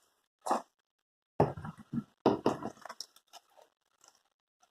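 Crunching, rattling handling noises from a plastic box of sequins being rummaged through: one short burst, then a quick run of crackly bursts and a few faint clicks.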